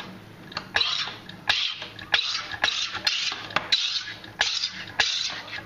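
SodaStream soda maker injecting CO2 into a 1-litre bottle of tap water in a rapid series of about ten short hissing gas bursts, a little under two a second, each starting with a click as the carbonation button is pressed.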